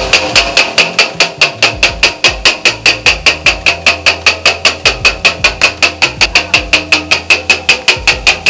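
A steel chopper hammers chopped meat on an iron griddle in the kothu style, in a fast, even rhythm of about six to seven strikes a second. Each strike clanks with a metallic ring.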